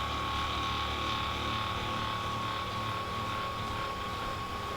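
Steady electric motor hum with a constant high-pitched whine and no change in speed.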